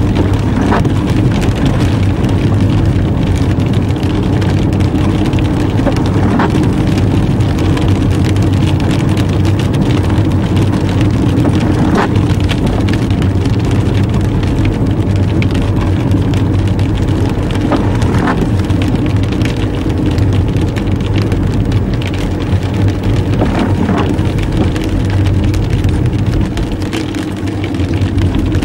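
Car interior noise while driving on a wet road: a steady low engine and road hum with tyre hiss, and a few faint clicks scattered through it.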